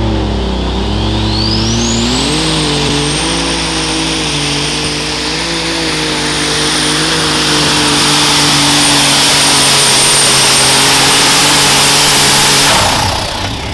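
Super stock pulling tractor's turbocharged engine running under load as it pulls the sled. A high turbo whine climbs steeply about a second in and then holds steady. The engine gets louder about eight seconds in and cuts off suddenly near the end.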